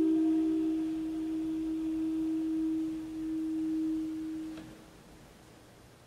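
Saxophone holding one soft, nearly pure note that slowly fades and stops about four and a half seconds in, with a faint click as it ends.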